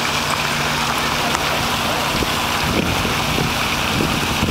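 Steady rush of water splashing down from a large tiered fountain into its basin.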